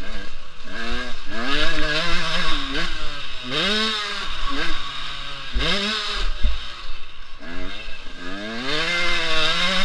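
Motocross bike's engine revving up and dropping back again and again as the rider accelerates, shifts and slows through the turns. It is heard from a helmet camera, with a few low thumps near the middle.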